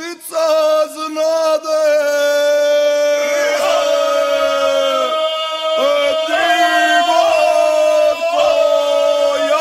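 Ganga, the traditional unaccompanied group singing of the Imotski hinterland: men's voices singing together in loud, long held notes, with short breaks for breath about five and six seconds in.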